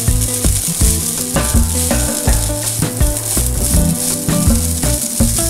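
Fried rice sizzling in a hot nonstick frying pan as it is stirred and turned with a silicone spatula, under background music with a bass line.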